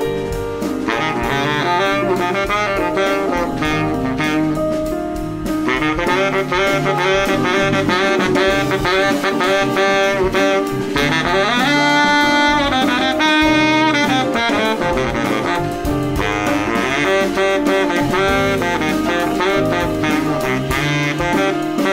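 Background jazz music with a saxophone carrying the melody over a drum kit.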